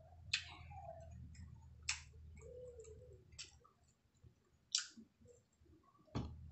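Close-up eating sounds: soft chewing and mouth noises with five sharp clicks spaced about a second and a half apart, the last one the loudest.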